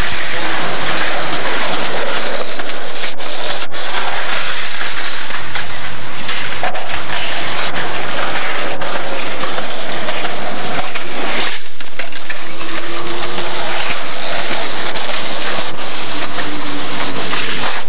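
Skateboarding on concrete: wheels rolling, with a few sharp clacks of the board, under the constant loud hiss of old camcorder audio.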